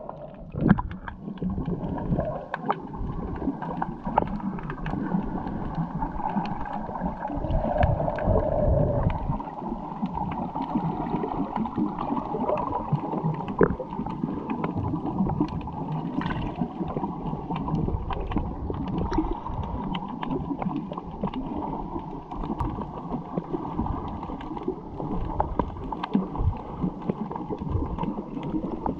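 Muffled water sloshing and gurgling around a swimming snorkeller, with scattered small clicks.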